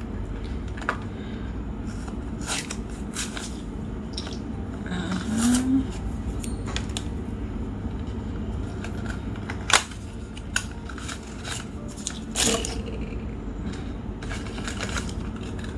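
Small cardboard boxes and packaging of glucose test strips being handled and opened: scattered light clicks, taps and rustles, several of them sharper, over a steady low background hum.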